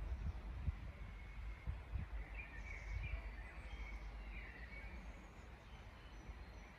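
Wind rumbling and buffeting on the microphone in uneven gusts, with faint songbirds chirping in the background.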